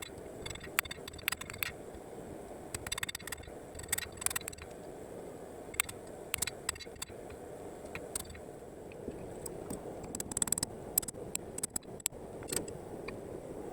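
Irregular light metallic clicks and short scrapes from hand work on steel, over a steady low hum.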